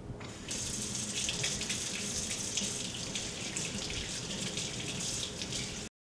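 Kitchen faucet running into the sink while hands are rinsed and rubbed under the stream. The water sound starts about half a second in and cuts off suddenly near the end.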